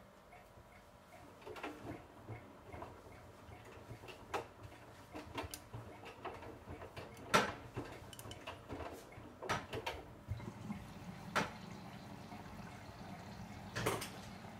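Bosch Serie 8 front-loading washing machine in its wash cycle: water sloshing in the turning drum, with irregular clicks and knocks as the laundry drops. A steady low hum sets in about ten seconds in.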